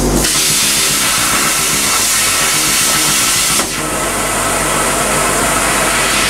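Torchmate CNC plasma cutter's torch giving a steady, loud hiss, dropping a little in level about three and a half seconds in.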